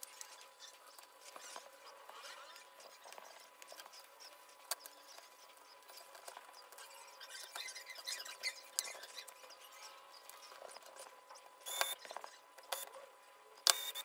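Plastic keyboard kit parts being handled and fitted together: faint scraping and light clicks as the plate and PCB assembly is set and pressed into the plastic case. A few sharper clicks come near the end.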